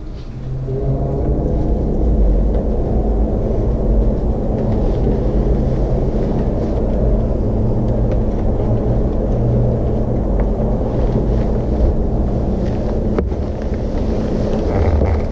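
Motorcycle engine idling steadily after starting up, getting louder over the first second or two. Its note changes slightly near the end.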